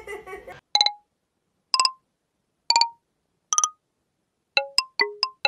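Edited-in ding sound effect: four single short pings about a second apart, then a quicker run of pings at changing pitches, several a second, each separated by silence.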